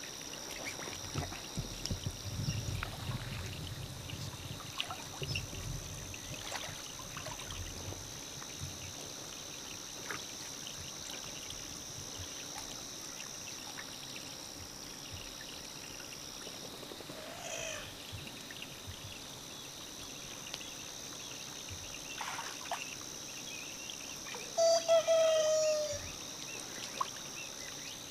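Muddy water sloshing and trickling as hands grope inside a bamboo plunge basket for trapped fish, heaviest in the first several seconds. A faint steady high whine runs underneath, and a short, loud call with a falling pitch sounds about 25 seconds in.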